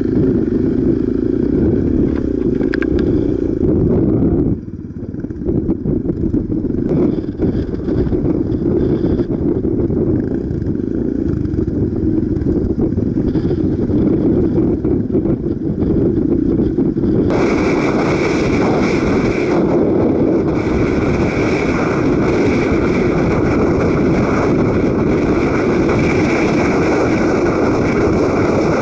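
Single-cylinder engine of a Suzuki DR dual-sport motorcycle running steadily as it is ridden over a muddy track. The level dips briefly about four and a half seconds in, and a harsher hiss joins after about seventeen seconds.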